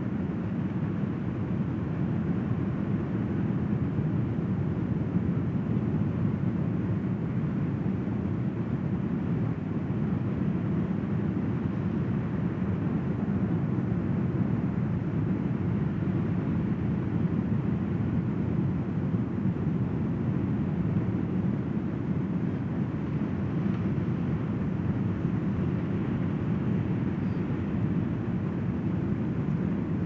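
Ocean surf breaking on a sandy beach, heard as a steady low wash of noise with no single wave standing out.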